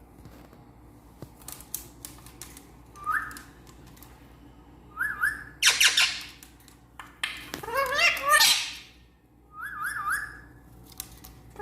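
A pet parrot whistling and squawking: short rising whistle notes about three, five and ten seconds in, and louder screechy calls around six and eight seconds, with a few faint clicks between them.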